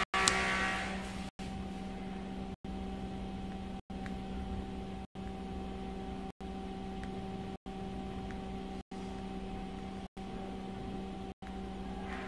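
A coloured pencil scratching on paper fades out in the first second and ends with a sharp tap. Then a steady low hum runs on, broken by brief gaps of silence about every second and a quarter.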